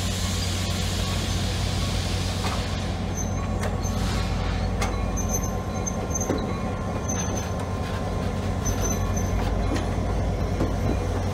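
Slow-rolling passenger train with its diesel locomotive running at a steady low hum. Wheels click over the rail joints and give short, thin squeals now and then, with a high hiss over the first few seconds.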